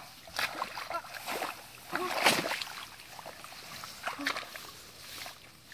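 Irregular splashing and sloshing in shallow muddy water as a crocodile is grappled, the biggest splash about two seconds in, with a few brief voice sounds between.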